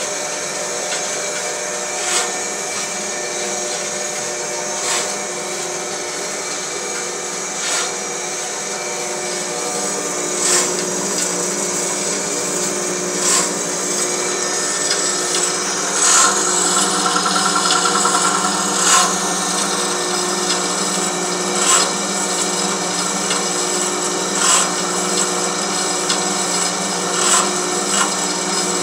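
Homemade belt-driven metal band saw running without cutting: a steady mechanical hum and whirr from the spinning band wheels and blade. A sharp tick comes about every three seconds, and a brief rattling buzz sounds about halfway through.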